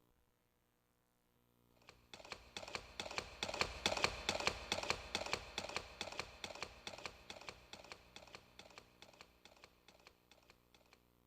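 A sound effect played back by a Kumyoung Chorus Master karaoke machine: a quick run of sharp clicks like typing, about five a second. It starts about two seconds in, grows loud, then fades away.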